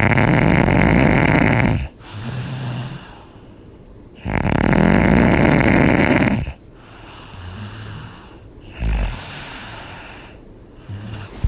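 A person snoring: two loud snores of about two seconds each, roughly four seconds apart, each followed by a shorter, quieter, lower-pitched sound. Softer snores and breaths follow in the second half.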